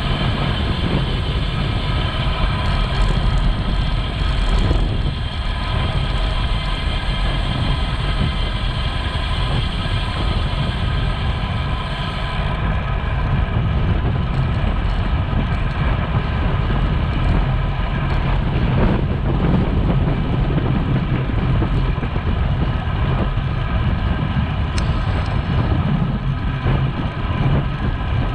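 Wind rushing over the microphone and road noise from a moving bicycle, a steady, loud rumble with a faint steady hum above it.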